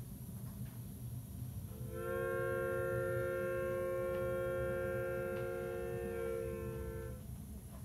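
Steam locomotive chime whistle, one long blast of several notes sounding together, lasting about five seconds, over the steady low rumble of a running N scale model train.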